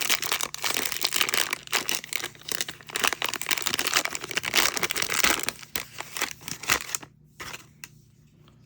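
A trading-card pack wrapper being torn open and crinkled by hand in a dense, crackly run. It stops about seven seconds in, leaving a few faint clicks.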